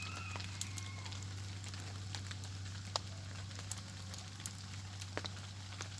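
Small campfire of bark and twigs crackling, with scattered sharp pops over a faint hiss.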